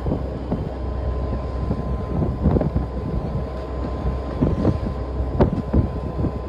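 Fishing boat at sea: steady rumble of the boat and wind, with a thin steady whine, and waves slapping against the hull several times, loudest about five seconds in.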